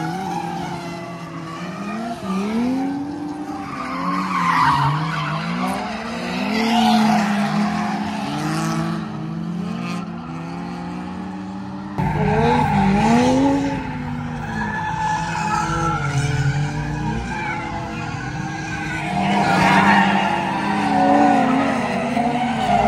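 Drift cars on track, engines revving up and down in repeated swells as the drivers work the throttle, with tires skidding and screeching during the loudest passes.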